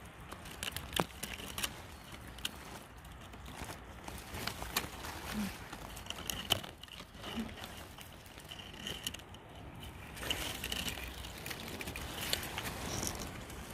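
Footsteps and rustling through forest undergrowth, with scattered crackles and snaps of twigs and leaves underfoot.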